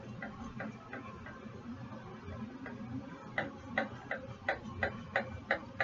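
Scissors snipping through fabric: faint, uneven snips at first, then sharp, even clicks about three times a second from about halfway through.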